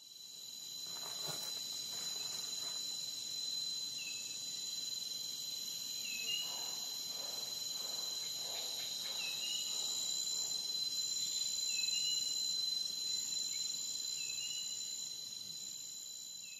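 A chorus of insects, such as crickets, chirring steadily in several high pitches, with a short chirp repeated every second or two. It fades in at the start and fades down near the end.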